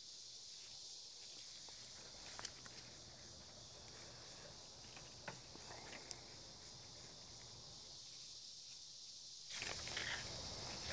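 Steady high-pitched insect chorus, with a few light clicks. Near the end, louder rustling and handling noise joins in.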